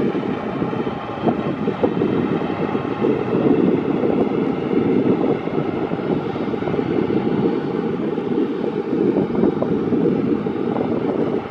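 Boeing 737-800's CFM56 turbofan engines running as the jet taxis after landing: a steady rumble with several faint, steady whining tones above it. Wind buffets the microphone.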